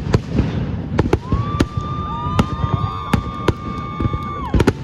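Fireworks going off: a quick series of sharp bangs and pops, with a long steady whistle over them from about a second in that cuts off near the end.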